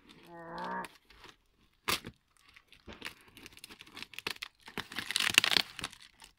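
Packing tape on a cardboard box being cut with scissors and torn open: a sharp click about two seconds in, then scratchy tearing and crinkling, loudest about five seconds in. A brief hum from a voice near the start.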